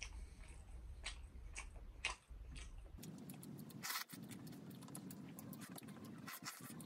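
A person chewing and biting boiled pork trotter eaten by hand, with many short wet mouth clicks.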